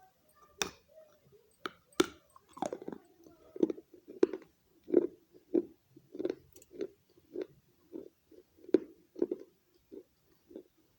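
A person biting and chewing baked clay close up: a few sharp crunches in the first couple of seconds, then steady, moist chewing at about two chews a second.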